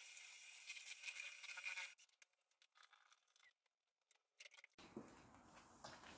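Near silence: a faint hiss at first, then a few faint clicks and scrapes.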